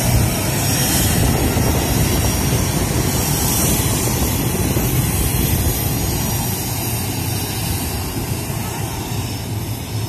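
Jet engine noise from a BAE Hawk jet: a steady, loud rush that slowly fades over the last few seconds.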